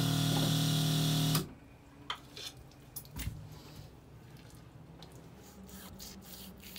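Water spraying from a hose's trigger nozzle with a steady hum, shut off suddenly about a second and a half in. After it come a few light clicks and knocks.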